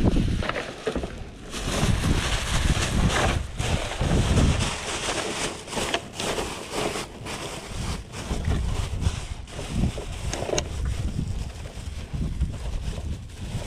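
Black plastic garbage bag crinkling and rustling as it is gripped and handled, with gusty wind buffeting the microphone.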